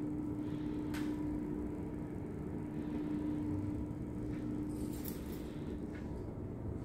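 Indoor room tone: a steady low rumble with a constant hum, and a few faint clicks.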